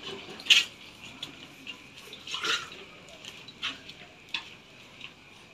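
A few scattered light knocks and scuffs over a faint steady hiss, the first the loudest, as of someone moving about a kitchen.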